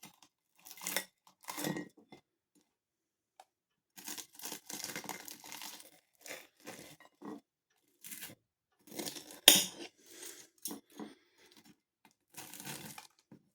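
Close-up chewing of a sausage roll's crispy pastry: irregular crunches and mouth sounds, with one sharp click about nine and a half seconds in.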